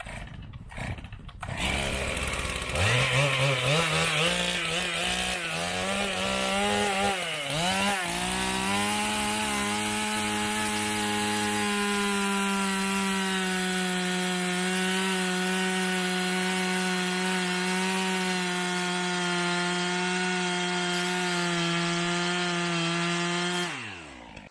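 Two-stroke chainsaw starting up about two seconds in and revving unevenly for several seconds. It then runs at a steady high pitch as the bar cuts down through the pond ice, and winds down just before the end.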